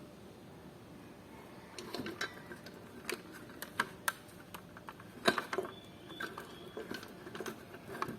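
Hands working on a solar light, making irregular sharp clicks, taps and light rattles with some rustling. It starts about two seconds in, and the loudest click comes a little after five seconds.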